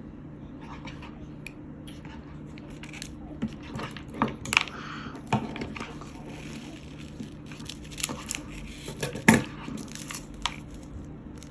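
Small plastic toy containers and packaging being handled: scattered clicks, taps and crinkles, with the loudest knock about nine seconds in.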